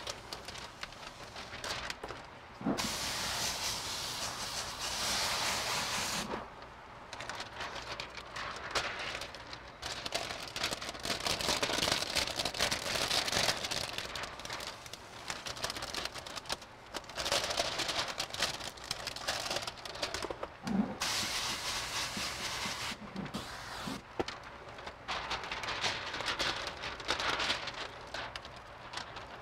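Hiss of a tint installer's pressurised water sprayer wetting the glass and film, on and off in long bursts of several seconds, with short rustles and knocks of the film being handled between them.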